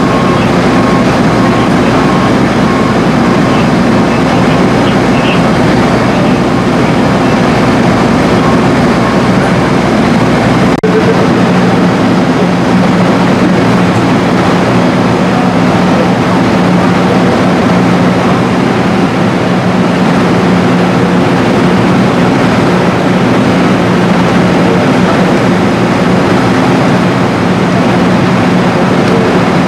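Fire engine's diesel engine idling nearby, a loud steady drone with a low hum. The hum changes abruptly about eleven seconds in.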